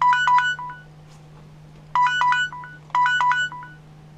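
Mobile phone alarm playing a short electronic melody of bright beeping notes: a phrase, another right after it, a pause, then two more phrases, over a steady low hum. It sounds as a morning wake-up alarm.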